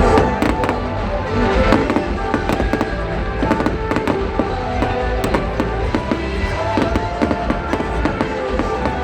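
Fireworks crackling and popping in a rapid string of sharp bangs, with music playing throughout.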